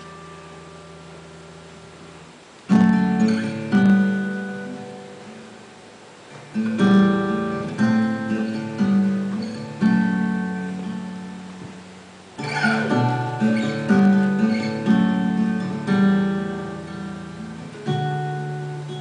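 Acoustic guitar music: a soft held chord, then strummed chords from about three seconds in, in several phrases.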